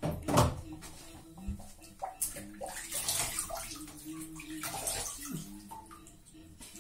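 Water splashing in a bathroom sink in irregular bursts, the loudest about half a second in.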